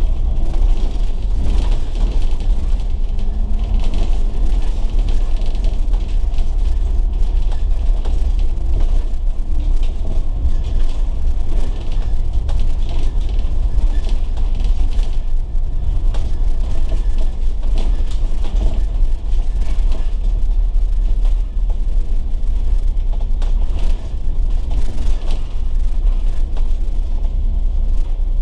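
Volvo B9TL double-decker bus on the move: its diesel engine gives a steady low rumble, with frequent rattles and clicks from the body.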